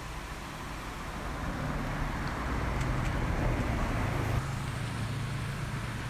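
A road vehicle passing on the highway: engine hum and tyre noise swell to a peak about three to four seconds in, then ease off.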